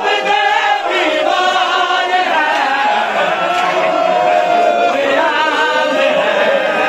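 A group of men chanting a noha, a Shia mourning lament, together in drawn-out sung lines.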